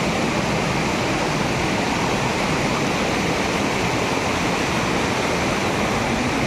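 Shallow rocky river rushing over boulders: a steady, unbroken sound of running water.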